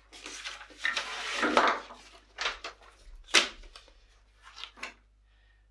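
A sheet of paper rustling as it is picked up and handled, with a few small handling knocks on a wooden bench and one sharp knock about three and a half seconds in.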